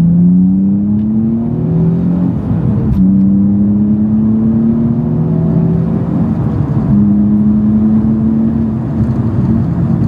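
Nissan 350Z's 3.5-litre V6 through a Japspeed stainless cat-back exhaust, accelerating hard through the gears. The revs climb, drop with an upshift about three seconds in, climb again, and drop with another shift about seven seconds in, then hold steadier.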